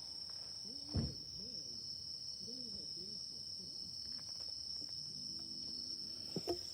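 Crickets chirping in a steady high chorus, with faint distant voices underneath and a short knock about a second in.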